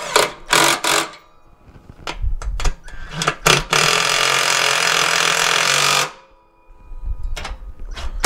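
Metal parts clank and knock, then a handheld power tool runs steadily for about two seconds in the middle and stops, during work on a riding mower deck's spindles and pulleys.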